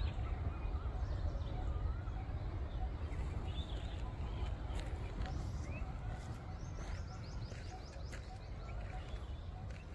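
Small birds chirping, with a quick run of high chirps about seven seconds in, over a steady low rumble of wind on the microphone.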